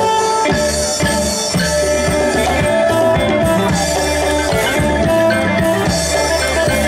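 Isan pong lang folk ensemble playing a dance tune through the stage speakers, melody instruments over a steady drum beat.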